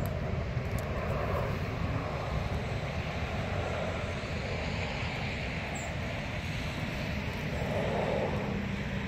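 Steady low rumble of a distant engine, swelling and easing slowly.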